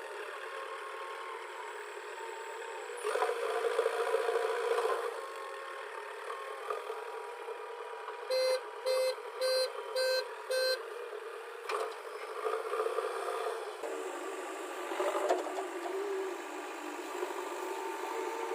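JCB 3DX backhoe loader engine running steadily, louder for a couple of seconds near the start. A little past the middle its reversing alarm sounds five short beeps, about one every 0.6 seconds.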